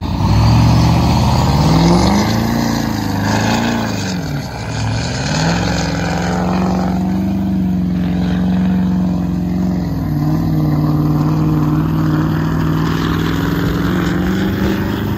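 Lifted Ford F-250 King Ranch Power Stroke diesel pickup revving hard while its wheels spin in a grass field. The revs climb and fall twice in the first few seconds, then are held high for about ten seconds, easing a little partway through.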